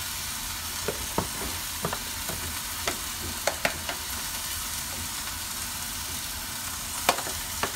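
Beef chuck roast sizzling steadily as it browns in hot oil in a stainless steel pot, with scattered sharp clicks and taps over the sizzle.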